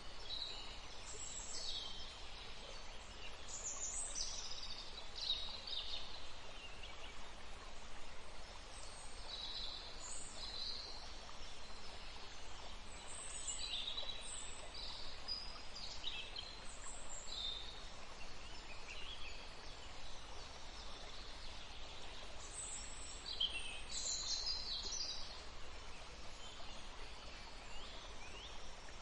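Birds chirping and singing in short calls scattered throughout, over a steady even hiss of running water.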